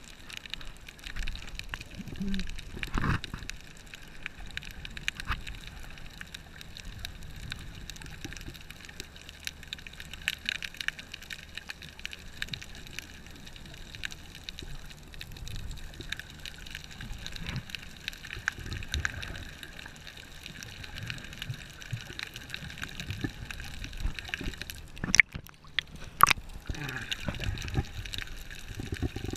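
Water sloshing and gurgling around a camera held underwater by a swimming snorkeler, muffled, with a couple of sharp knocks near the end.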